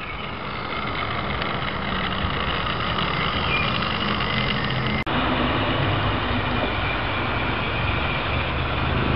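Model railway train running along the track: a steady rumble of its electric motor and wheels on the rails, with a brief dropout about five seconds in.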